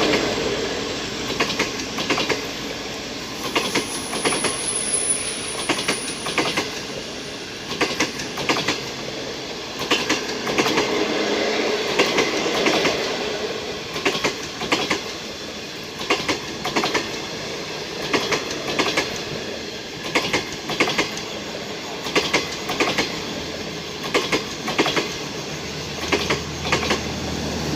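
Passenger train coaches behind a DF4BK diesel locomotive rolling along, their wheels clacking over rail joints in repeated groups every second or two over a steady rumble. A brief thin high squeal comes about five seconds in.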